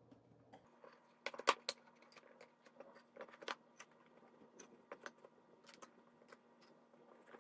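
Poplar slats with 1/8-inch masonite splines being pressed together by hand in a dry fit: a scattered series of light wooden clicks and knocks, the loudest about a second and a half in.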